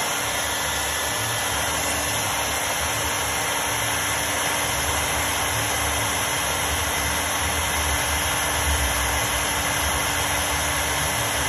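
Electric blower running steadily: a constant rush of blown air with a faint steady hum.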